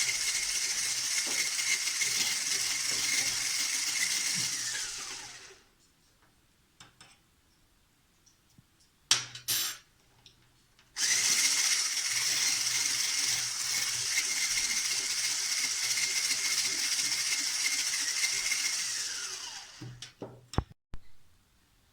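Electric blender whipping egg whites into meringue: the motor runs steadily with a high whine, winds down, then runs again about halfway through and winds down near the end. In the pause a spoon clinks as sugar is added.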